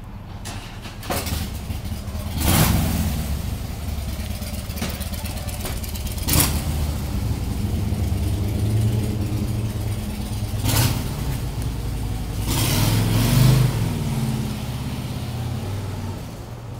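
Yamaha cruiser motorcycle engine idling, revved up several times, with the longest and loudest rev late on.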